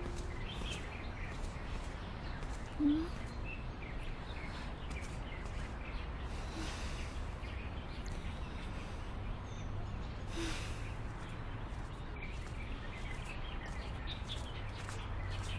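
Outdoor ambience: a steady low background noise with small birds chirping now and then, and one brief louder sound about three seconds in.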